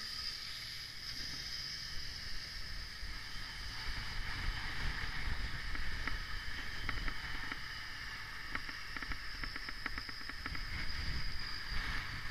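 Road and wind noise from a camera mounted on a moving bike: a steady low rumble and high hiss, with a rattle of quick clicks from about halfway through as the mount shakes over the road surface.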